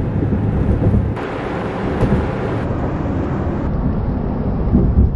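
A car driving on a highway, heard from inside the cabin: a loud, steady low rumble of road and wind noise.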